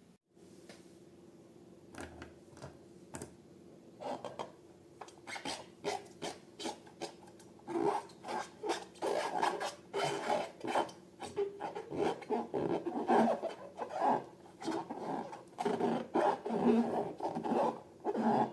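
Rubbing and scraping as balloons and slime are handled, in quick repeated strokes. It starts sparse and grows busier and louder from about four seconds in.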